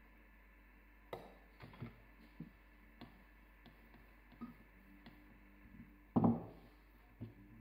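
Scattered light taps and soft knocks from dusting dough with flour through a small strainer and rolling it out with a wooden rolling pin on a silicone baking mat. The loudest is a heavier thud about six seconds in.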